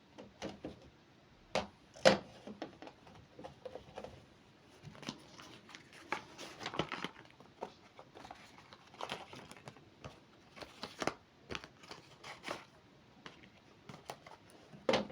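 Tarot cards and decks being handled: scattered light clicks, taps and papery rustles at irregular intervals, with a sharper click about two seconds in.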